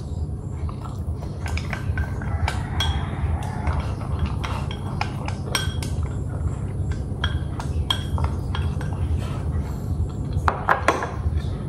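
Eating utensils clinking and tapping against a dish, in scattered irregular clicks, over a steady low hum.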